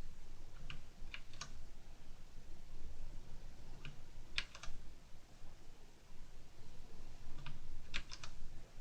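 Cougar Attack X3 mechanical keyboard with Cherry MX Black switches, its keys pressed in small groups of two or three sharp keystrokes about every three seconds.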